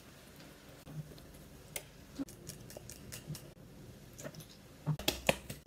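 Light handling noises of hands and a small plastic toiletry bottle: scattered small clicks and taps, with a quick run of louder ones near the end.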